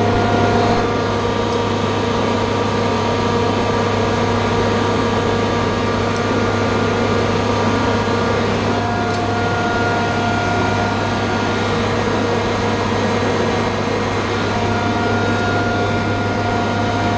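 Industrial air compressor running: a steady, even hum with a strong low drone and several constant tones above it.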